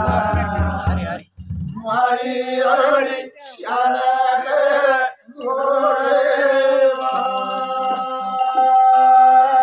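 A man singing a chant-like song in phrases, with drum beats under the voice that stop about a second in; the voice then carries on alone and ends on a long held note.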